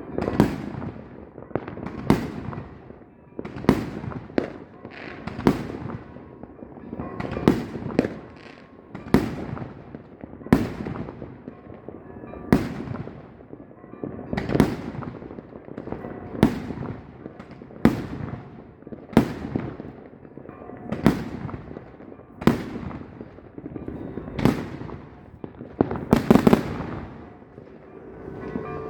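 Fireworks going off in a steady string of sharp bangs, about one every second or two, each fading out quickly. Several bursts come close together near the end.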